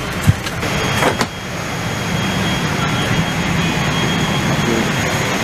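Steady air rush and hum of a parked Boeing 777-200ER's cabin air conditioning, with a sharp thump and a couple of knocks in the first second or so. After about a second the drone gets slightly louder and carries a faint high whine.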